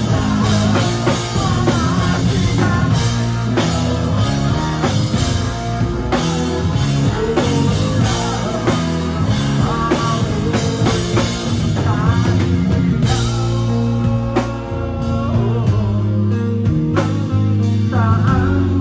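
Live rock band playing a song: electric guitars, drum kit and keyboard, with a male lead singer.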